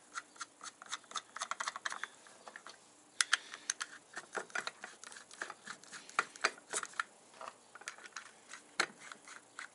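Small steel nuts being picked up and threaded by hand onto the studs of a motorcycle rear sprocket carrier: irregular light metallic clicks and ticks, with a few sharper taps.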